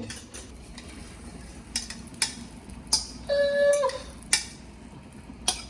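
Scattered light clicks and taps of kitchen handling, about half a dozen spread irregularly. About the middle comes a short held tone that dips in pitch as it ends.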